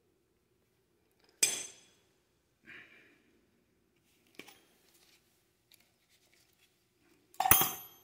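Metal hand tools clinking while a cotter pin is fitted through the castle nut on a front wheel spindle. Two sharp metallic clinks with a ringing tail, about one and a half seconds in and near the end, the second the louder, with a short rustle and a few light ticks between.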